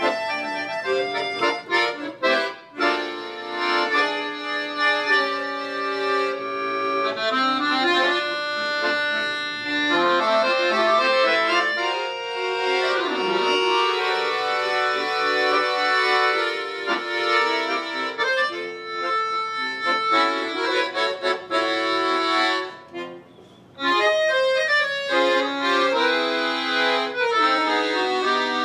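Two piano accordions playing an instrumental duet, sustained chords under a moving melody line. The music breaks off briefly about three-quarters of the way through, then both come back in together.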